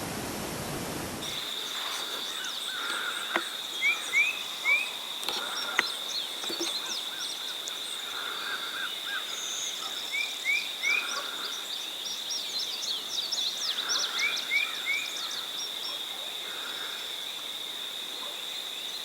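Several wild songbirds calling and singing, one repeating a short phrase of three quick rising notes every few seconds, over a continuous high, steady whine. A steady hiss cuts off about a second in.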